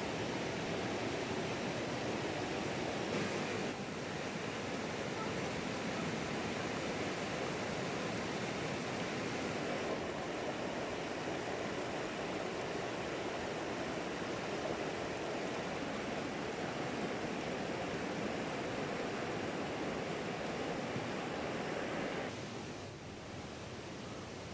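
Steady rushing noise of flowing water, even and unbroken, dropping a little in level near the end.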